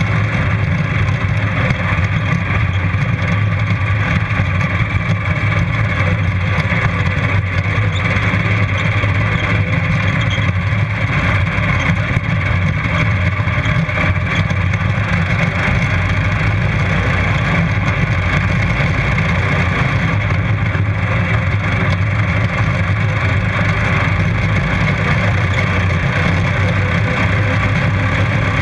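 Racing ride-on lawn mower engine running hard and steady, heard close up from a camera mounted on the mower.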